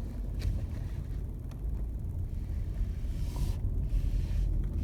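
Car interior rumble while driving on a country road: a steady low drone of engine and tyres, with a brief swell of hiss about three seconds in.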